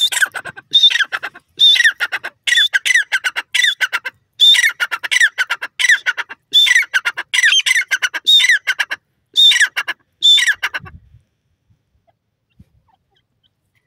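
Male grey francolin calling: a loud, harsh series of quick notes, each phrase sliding down in pitch, repeated about once a second. The calling stops abruptly about eleven seconds in.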